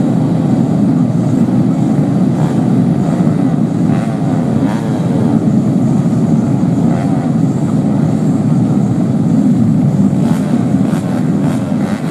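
Race motorcycle engines running hard in a continuous loud drone. One bike's pitch sweeps past about four to five seconds in.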